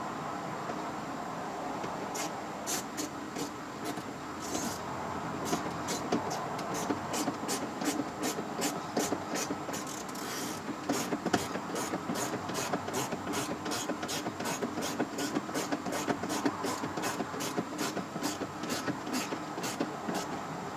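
A ratchet clicking in steady, even strokes, about two clicks a second, as a fastener is turned in on a car door panel.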